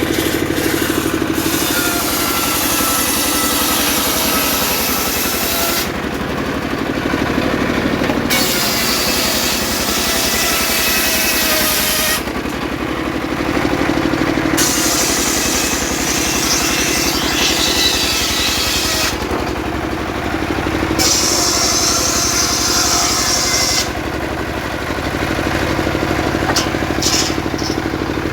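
An engine-driven portable circular saw runs steadily while its blade rips through sengon logs in about five cuts, each lasting a few seconds. Between cuts there are short pauses where only the engine and the spinning blade are heard.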